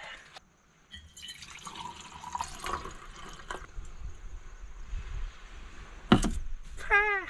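Water running and splashing, with a sharp knock about six seconds in and a short wavering pitched squeak near the end.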